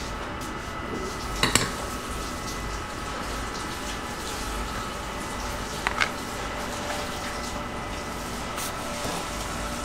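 Steady hum of bakery equipment with a few light clatters of utensils and cake on a stainless-steel counter: a sharp double knock about a second and a half in and another about six seconds in.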